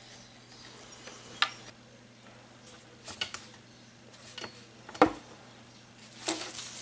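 A few short, separate knocks and clicks of craft tools and objects being handled and set down on a tabletop, the loudest about five seconds in, over a faint steady hum.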